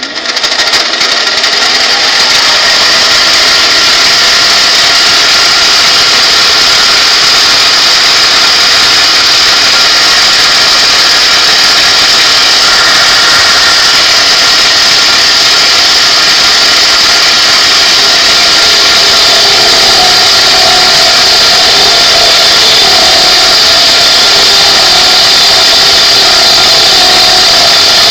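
Metal lathe spinning up and running steadily while cutting a step into the side of a metal nozzle, a loud even machining noise with a hiss high up. About two-thirds through, a steady tone joins it.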